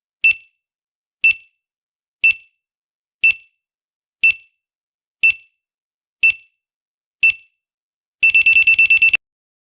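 Countdown-timer beep sound effect: a short high electronic beep once a second, eight times, then a rapid burst of about nine beeps in a second near the end, signalling that the answering time is up.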